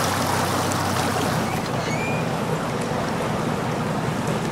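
Outboard motor of a bass boat running at low speed, with a steady low hum under the rushing, churning water of the wake.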